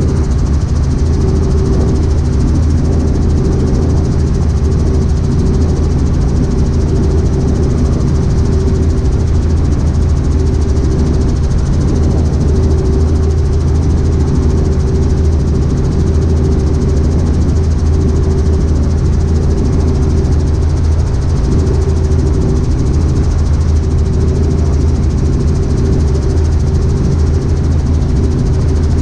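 Helicopter in steady forward flight, heard from inside the cockpit: a loud, even drone of rotor and engine with a strong low hum that does not change.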